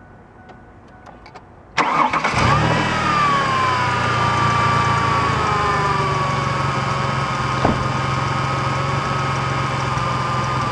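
V6 car engine starting on a freshly installed battery: a few faint clicks, then a brief crank about two seconds in that catches at once, and the engine settles into a steady idle as the revs fall.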